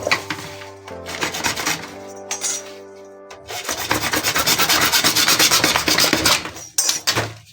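Quick, even rasping strokes on a CPVC pipe, starting about three and a half seconds in and lasting about three seconds. Soft background music plays before them.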